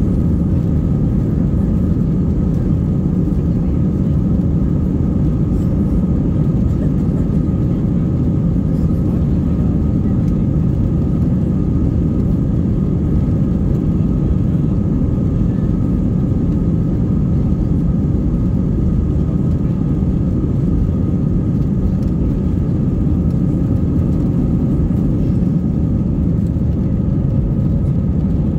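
Airbus A319 cabin noise during the takeoff roll and liftoff: the jet engines at takeoff power with a loud, steady low rumble and a faint steady whine above it.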